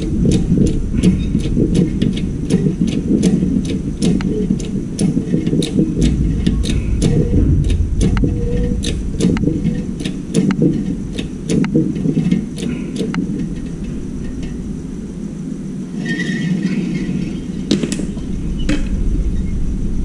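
Hydraulic bottle jack in a shop press being pumped by hand: a quick run of sharp metallic clicks, about three a second, that thins out after about thirteen seconds. Under it all is a steady low rumble, the loudest sound.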